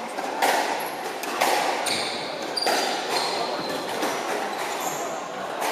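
Squash rally: the ball smacking off rackets and the court walls about once a second, with short high shoe squeaks on the court floor between the hits.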